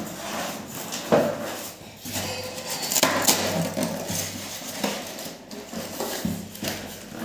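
Cardboard box flaps, foam packing pieces and plastic wrap being handled and pulled apart as a water heater is unpacked by hand: an uneven run of rustling, crinkling and small knocks, with a sharp knock about a second in.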